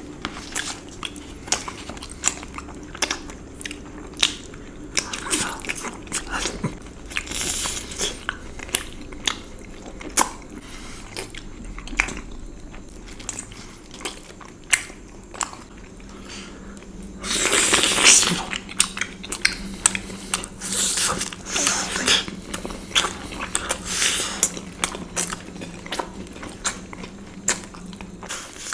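A person chewing and biting sweets, with many short wet clicks of the mouth, and a louder noisy burst lasting about a second roughly two thirds of the way through.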